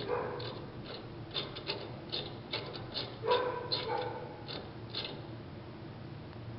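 Metal clinking and scraping as a steel fitting is worked up and out of the tubular post of a drill-press lathe attachment: about a dozen short clicks over five seconds, with a brief tone about three seconds in.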